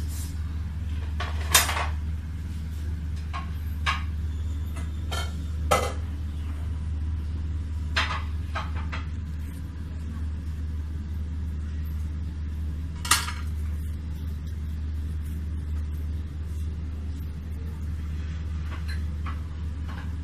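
A ceramic serving platter clinking and clicking a few times as it and the fried samosas on it are handled, over a steady low hum.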